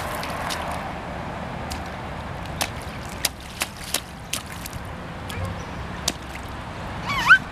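Rubber boots stepping and splashing in a shallow rain puddle, with scattered sharp splashes over a steady background hiss. Near the end, a short high-pitched rising squeal is the loudest sound.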